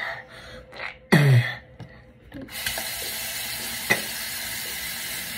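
A short, loud voiced sound falling in pitch as toothpaste is spat into the sink, then a bathroom sink tap turned on about two and a half seconds in, running steadily into the basin, with a single click about a second later.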